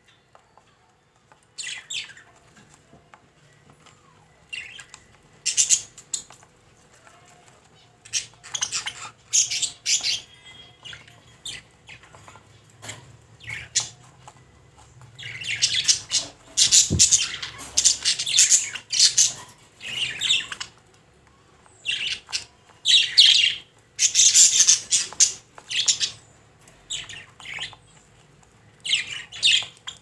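Budgerigar chirping and squawking in bursts of high-pitched chatter every few seconds, with longer runs of chatter in the second half.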